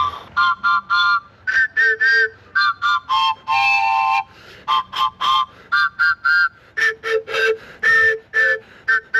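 Harmonica played as a string of short separate notes, a simple tune picked out by hole number, with several notes sounding together in each blow or draw.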